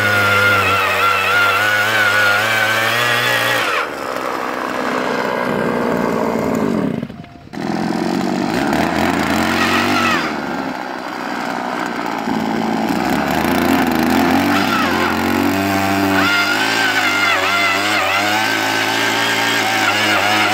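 Small two-stroke engine of a two-man petrol earth auger running under load as it bores a fence-post hole, its speed rising and falling as the bit bites into the soil. About seven seconds in it dips sharply for a moment, then picks up again.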